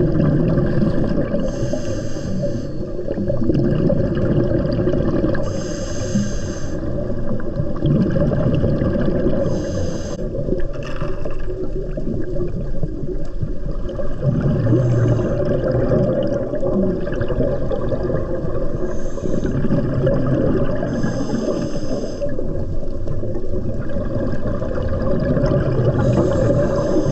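Scuba diver breathing through a regulator underwater: a short hiss of inhaled air about every four to five seconds, with a low rumble of exhaled bubbles between breaths.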